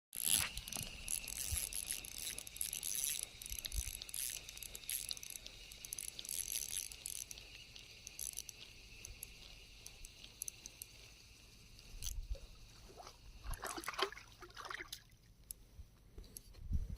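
Water trickling and splashing, with many small clicks and crackles, dying away about fifteen seconds in.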